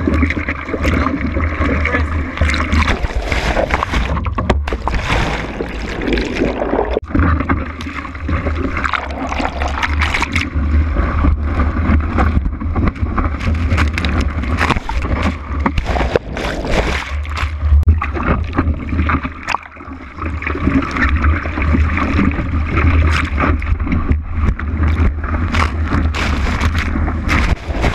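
Seawater sloshing and splashing around a surfer's body-mounted action camera as it goes in and out of the whitewater, over a constant deep rumble.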